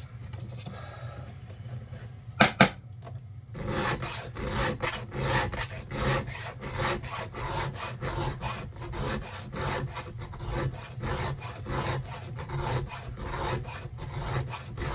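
Hand file rasping across the cutter teeth of a chainsaw chain in steady, even strokes, about one and a half a second, starting a few seconds in: resharpening teeth blunted by a rock strike. Before the filing, two sharp clicks in quick succession.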